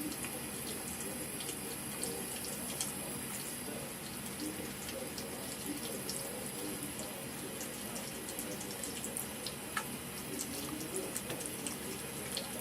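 Bathroom sink tap running in a steady stream into the basin, with scattered light ticks and splashes through it.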